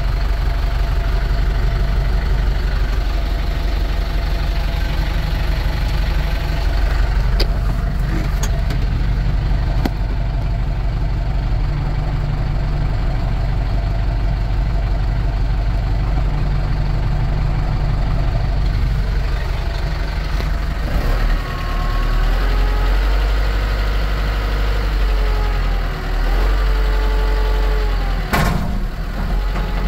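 A 2012 Kubota M9540 tractor's four-cylinder turbo diesel engine running, mostly at a steady idle. In the last third, a whining tone rises and falls in pitch as the revs shift, with a brief dip and a short sharp noise near the end.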